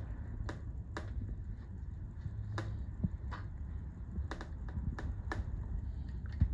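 Light metal clicks and taps, about a dozen at irregular intervals, from a turret presser feet assembly on an industrial sewing machine being adjusted by hand, over a low steady hum. The sharpest click comes near the end.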